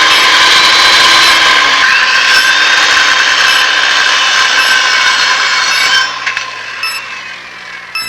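Surgical power saw running loudly at high speed with a steady whine, cutting off about six seconds in and then fading away.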